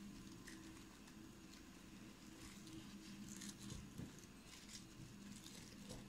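Faint rustling and crackling of fingertips pressing buttery biscuit-crumb mixture into a plastic-lined steel bowl, in soft irregular scratches that bunch up about halfway through. A low steady hum sits underneath.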